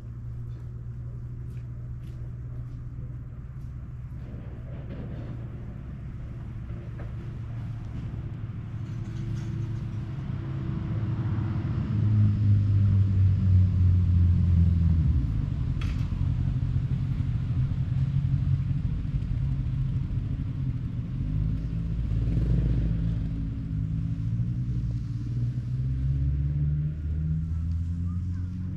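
A low engine running steadily with a deep hum, growing louder about halfway through and then easing a little.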